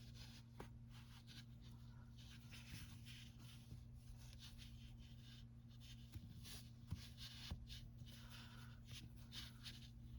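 Faint rustling and scratching of acrylic yarn strands being pulled through crocheted stitches to add beard strands, with a few soft clicks, over a steady low hum.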